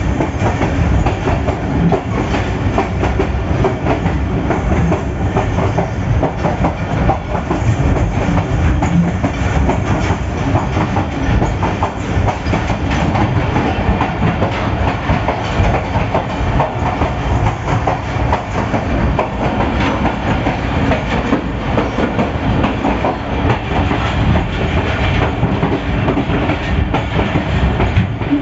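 PHA-20 diesel locomotive running at speed, heard in the cab with the side door open: a loud, steady rush of running noise with the clickety-clack of the wheels over the rail joints.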